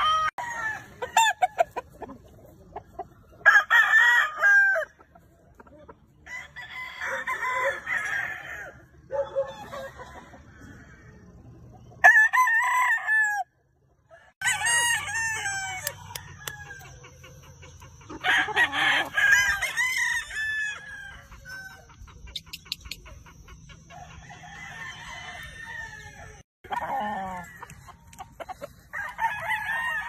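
Gamefowl roosters crowing again and again, one crow after another, with shorter clucking calls in between.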